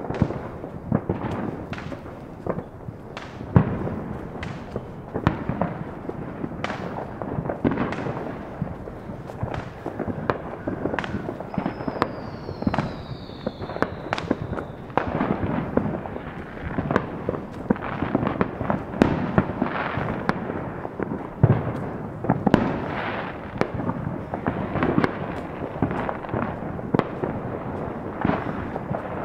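Fireworks and firecrackers going off around the neighbourhood: an almost continuous, irregular barrage of bangs, pops and crackles, some sharp and others duller. A faint falling whistle is heard around the middle.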